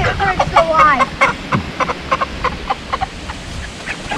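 White meat chickens clucking and squawking in quick, short calls as one is grabbed and lifted by hand; the calls come thick at first and thin out after about two seconds.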